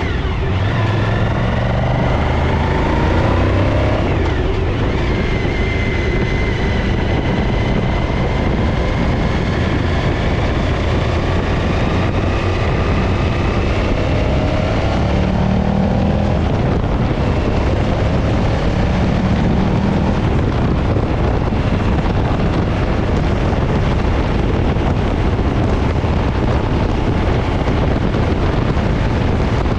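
A vehicle engine running steadily under heavy wind noise, its pitch drifting slowly up and down.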